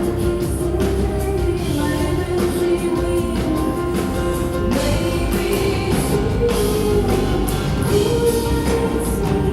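Live concert recording of a rock song: a woman singing sustained lines over a full band with bass and drums.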